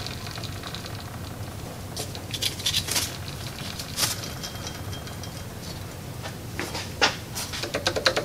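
Scattered metallic clicks and knocks from hand tools and engine parts being handled at the accessory-drive pulleys, with a quick run of clicks near the end.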